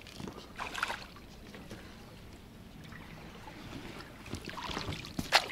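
A wet cast net being hauled back out of the water into a small boat: splashing and dripping water, with a splash about a second in and more sloshing building up near the end. A single sharp knock comes just before the end.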